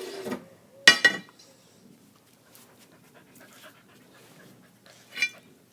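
Dog sneezing: a sharp double sneeze about a second in, then a single shorter sneeze near the end.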